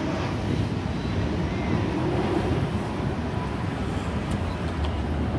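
Steady low rumble of a Boeing 737-800's CFM56 jet engines as the airliner flies low on approach, mixed with wind on the microphone.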